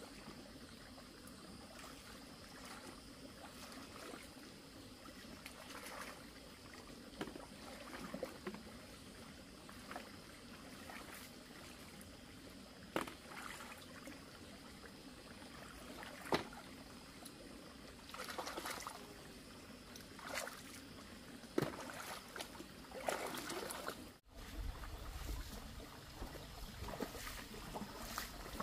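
Shallow water trickling and splashing, with scattered sharp clicks and knocks.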